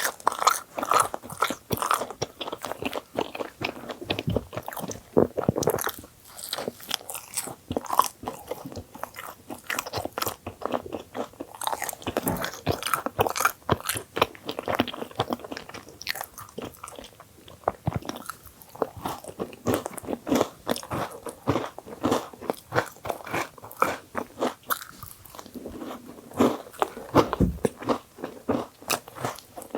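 Close-miked biting and chewing of a thick filled bagel sandwich: a steady run of small mouth clicks and smacks, with a few louder bites along the way.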